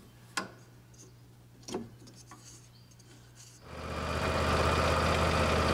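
A few faint clicks, then about four seconds in a Husqvarna lawn tractor's engine comes in running steadily. It is the test run after a worn, noisy drive idler pulley was replaced, and no pulley noise is left.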